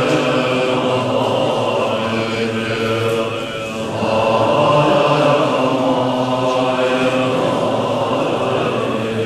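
Group of Tibetan Buddhist monks chanting in unison, a steady, continuous recitation with a short dip in loudness about three and a half seconds in.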